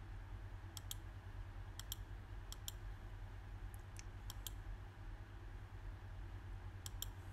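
Computer mouse clicking: a dozen or so short sharp clicks, mostly in close pairs, over a steady low hum.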